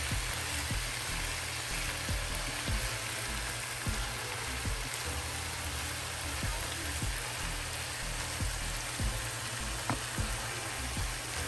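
Plant-based ground meat with onions and bell peppers sizzling steadily in a frying pan while a wooden spoon stirs through it, with irregular soft knocks of the spoon against the pan.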